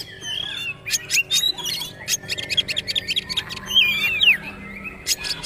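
Oriental magpie-robin (kacer) singing: a fast run of sharp, rattling clicks, the 'trotol' style, followed by whistled phrases that slide up and down in pitch.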